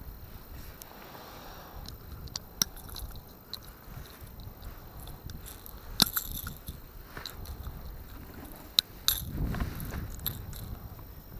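Handling noise: scattered clicks, taps and scrapes, several sharp ones and a louder rustle near the end, over a low wind rumble on the microphone.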